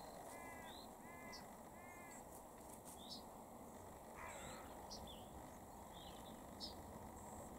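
Birds calling: a short call repeated four times in quick succession near the start, a longer call about four seconds in, and brief high chirps scattered throughout.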